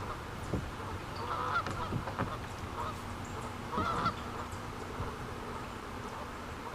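A few short honking bird calls, faint against a low steady background.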